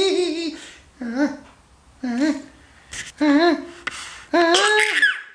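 A baby humming in short wavering tones, a new phrase about every second.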